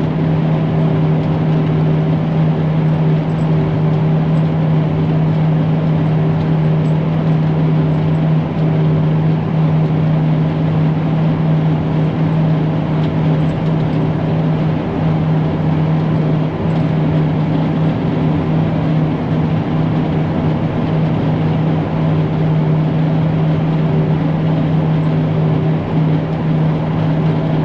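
Engine of farm machinery running steadily at a constant speed, a low even hum that holds one pitch throughout.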